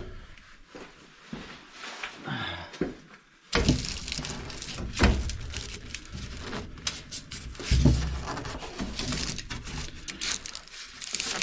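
Handling noise from fitting a furnace's draft inducer motor assembly back into place: scraping and rattling with scattered clicks, and two heavier knocks about five and eight seconds in.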